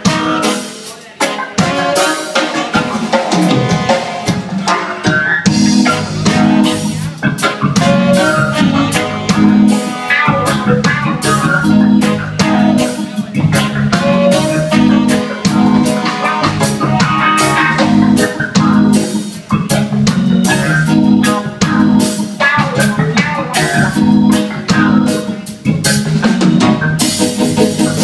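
A live band playing with drum kit and guitar to a steady beat; low bass notes come in about five seconds in.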